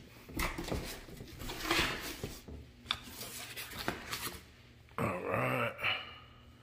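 Cardboard packing boxes being handled and shifted inside a large shipping carton: scattered rustles, scrapes and light knocks.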